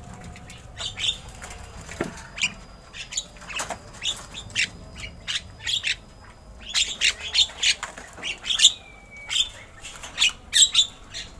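Javan myna (jalak kebo) calling: a run of short, harsh chattering squawks and clicks, several a second, busiest in the second half. A thin, steady high tone runs underneath during the first half.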